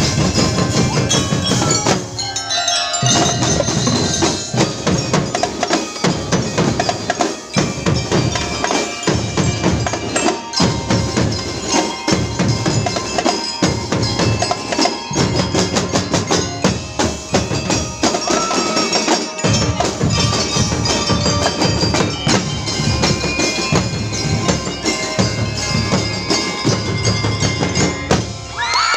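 A children's drum and lyre corps playing: bell lyres struck with mallets ring out a melody over a regular beat of snare, tenor and bass drums.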